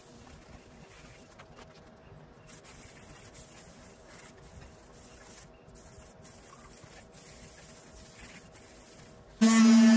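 Faint scrubbing of an abrasive pad rubbed by hand over the sunroof frame. About nine seconds in, an electric sander switches on loudly and runs with a steady hum and whine.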